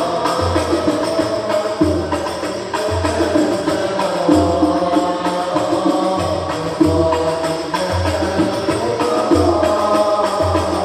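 An al-banjari ensemble performing an Arabic sholawat: male voices singing together over frame drums (terbang) beating a steady repeating rhythm.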